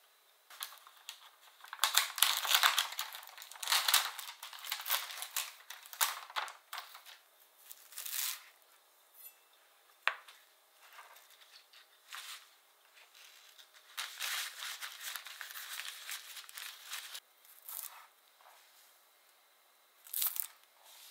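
A kitchen knife cutting fresh greens (daikon sprouts and green onions) on a cutting board, with crisp slicing and rustling as the greens are handled and scraped along, coming in clusters with short pauses between.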